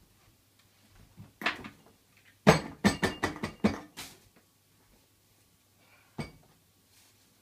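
Hard objects clinking and knocking as they are handled: a quick run of sharp clatters in the middle, then a single knock near the end.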